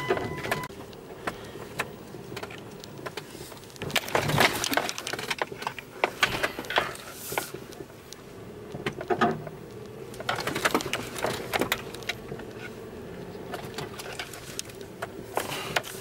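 Inside a vehicle cab on a rough, snow-covered dirt track: a low steady running noise with bursts of knocks, rattles and crunches as the vehicle jolts along, busiest about four seconds in and again around ten to twelve seconds.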